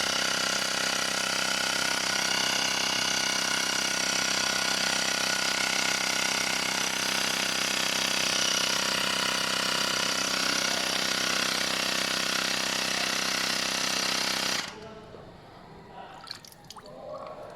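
Small portable air compressor running steadily with an even pulsing drone, as used to inflate a freshly plugged scooter tire. It cuts off abruptly about fifteen seconds in, and a few light clicks and handling knocks follow.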